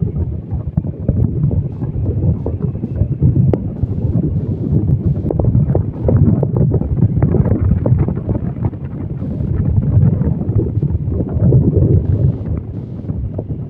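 Wind buffeting the microphone: a loud, gusting low rumble with crackles.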